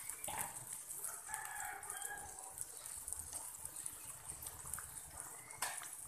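A rooster crowing in the background for about two seconds near the start, over a faint steady hiss of sauce simmering in a wok. A single sharp knock comes near the end.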